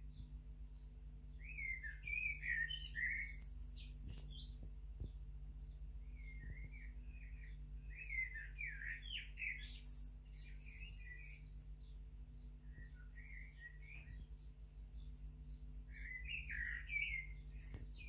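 Male common blackbird singing: several separate phrases of low fluted warbling a few seconds apart, some ending in a higher, squeakier twitter.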